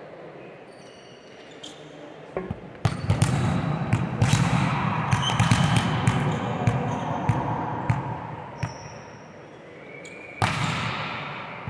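Volleyballs being struck and bouncing on the court. The start is quieter, then a busy run of sharp smacks and thuds comes from about three seconds in, eases off, and one more loud hit comes near the end.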